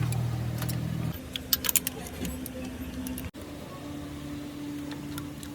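Car engine running steadily. Its low hum changes abruptly about a second in and drops in level, leaving a steadier, higher hum, with light scattered clicks over it.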